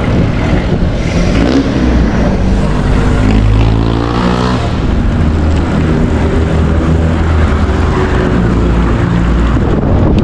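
Wind rumbling steadily over the camera microphone of a moving bicycle, with a motor vehicle's engine swelling and fading as it passes about four seconds in.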